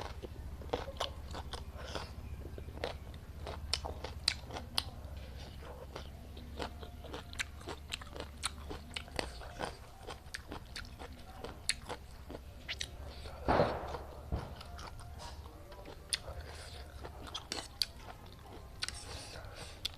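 Close-miked eating: chewing and biting with many small sharp mouth clicks and crunches, one louder burst about two-thirds of the way through, over a steady low hum.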